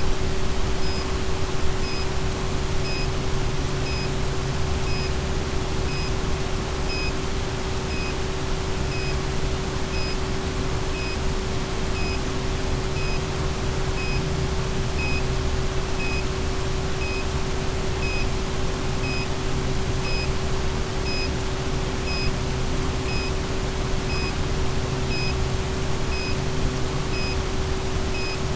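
Steady static hiss from an analog FPV video link's audio channel, with a constant hum under it and a short high beep about once a second.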